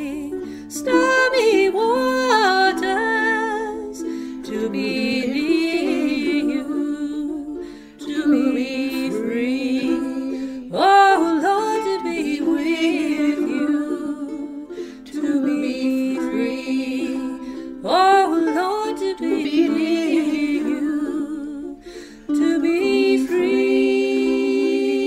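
Ukulele playing with a woman's voice humming the melody without words, in phrases that rise and fall; a fuller held chord comes in near the end.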